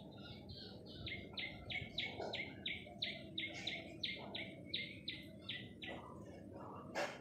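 A bird calling a fast run of short, repeated downward-slurring chirps, about three a second, over low background noise. A sharp click comes near the end.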